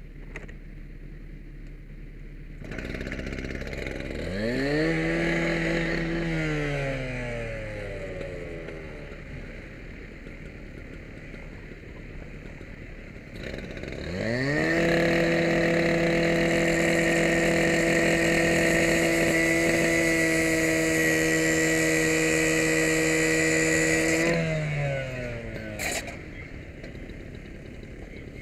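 Two-stroke gas cut-off saw (rotary rescue saw) started, revved up once and let fall back, then held at a steady full-throttle whine for about ten seconds while cutting the chain on a padlocked chain-link gate, winding down near the end.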